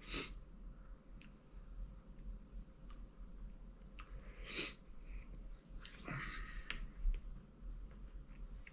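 A person breathing sharply through the mouth, three short hissing breaths, with small lip smacks and mouth clicks between them: reacting to a mouth burned by Carolina Reaper pepper.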